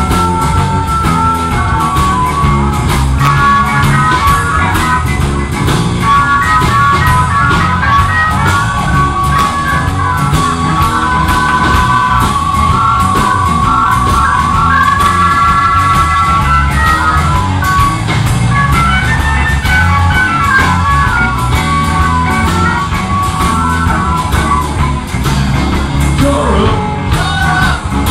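Rock music with guitar, drums and a sung or lead melody over a steady beat.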